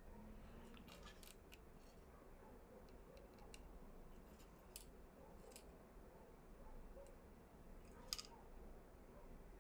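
Scattered faint clicks and taps of a small box being handled in the hands, with one sharper click near the end.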